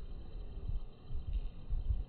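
Low, uneven rumbling on a smartphone's microphone, swelling in a few bursts, over a faint steady hiss; no bird call is heard.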